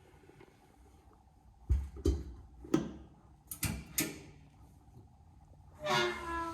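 A metal door and latch being worked: about five sharp clicks and clunks, then a short creak near the end.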